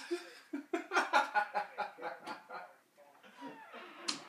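A man laughing in a quick run of short bursts, trailing off into softer breathy chuckles.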